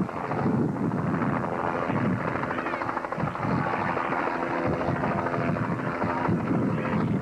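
Light helicopter flying overhead: the fast, steady beat of its rotor blades over a steady engine tone.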